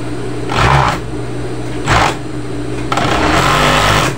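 Industrial sewing machine stitching in three short runs, the last the longest, over the steady hum of its motor.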